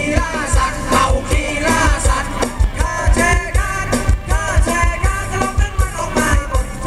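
Amplified live band playing Thai ramwong dance music with a singer, over a steady quick beat.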